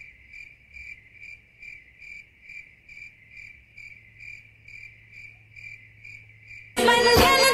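Cricket chirping alone, a steady series of short, even chirps at about two a second, the stock comedy 'silence' sound effect. Near the end, loud Bollywood-style music with singing cuts in abruptly.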